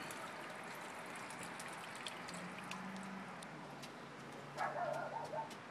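Water trickling and dripping on a toy water table, with faint small splashes. Near the end, a dog starts barking in the distance, a quick run of short barks.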